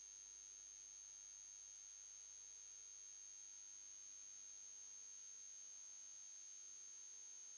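Near silence, with a faint steady high-pitched electronic tone.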